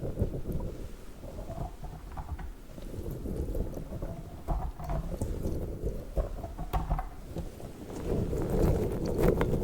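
Orange squishy slug toy being squeezed and handled right against the microphone: a dense, low, rumbling squish with small clicks, growing louder near the end.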